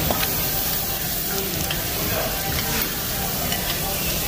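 Beef sizzling on a Korean barbecue tabletop grill, a steady frying hiss with small crackles.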